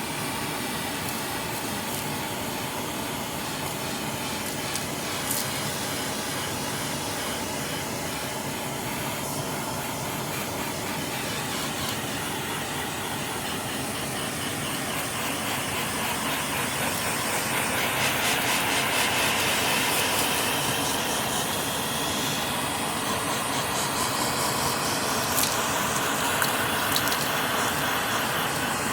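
Vacuum cleaner running steadily while sucking grit from car carpet, with a few sharp ticks of debris striking the nozzle or hose. The suction noise grows louder and brighter for a few seconds a little past the middle.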